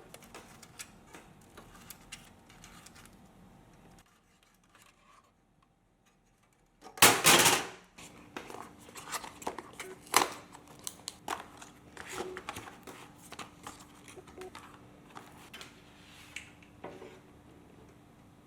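Hands handling computer parts: scattered clicks and light taps, then a loud rasping burst about a second long, like packaging tearing, followed by more clicks and taps.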